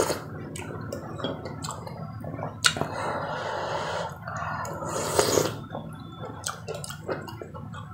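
Wet mouth sounds of eating soft rice porridge with vegetables off a spoon: slurping and chewing, with a few sharp clicks, the loudest about a third of the way in and again past the middle.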